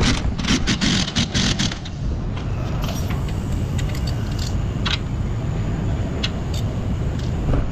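Pneumatic impact wrench hammering on the strut's stabilizer link nut for about the first two seconds, then a few scattered metal clicks over a steady low rumble.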